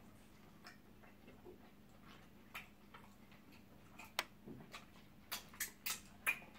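Wet lip smacks and mouth clicks of people eating eba with slimy okra soup by hand, a few at first and then a quick run of sharper ones in the second half.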